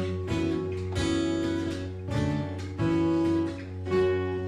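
Acoustic guitar strumming and holding chords in the instrumental break of a folk song, with no singing.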